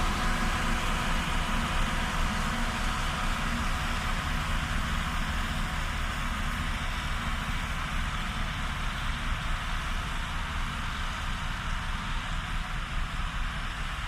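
Heavy diesel engines of road construction machines, a motor grader and road rollers, running steadily as the convoy moves along, slowly fading.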